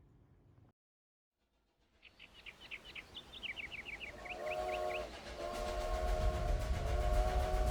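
A train sound effect. After about a second of silence, a rhythmic chugging starts and grows louder, with a quick run of short high chirps. Then a chord-toned train whistle blows: a short blast about halfway through, followed by a long one.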